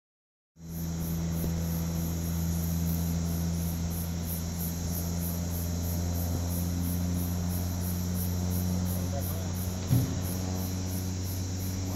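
Insects chirping in a steady high pulsing trill, about three or four pulses a second, over a steady low hum. There is a brief thump about ten seconds in.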